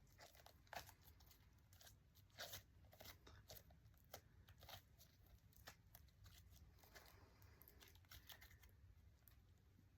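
Faint, irregular crackles and pops of Scoopi milk tea slime being squished and stretched by hand.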